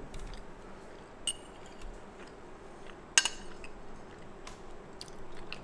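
Metal fork clinking and tapping against a plate while cutting a piece of soft semolina cake: a few sharp clicks, one ringing briefly about a second in and the loudest about three seconds in.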